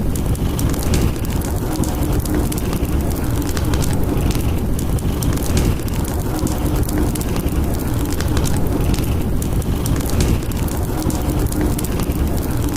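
Fireplace crackling over a steady rush and rumble of snowstorm wind, with a faint hum that rises and fades about every two seconds.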